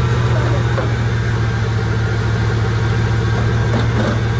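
Bugatti Veyron's quad-turbo W16 engine idling steadily.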